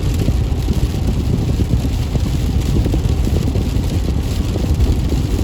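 Steady low rumbling road and wind noise from a moving car, with no distinct thunderclap.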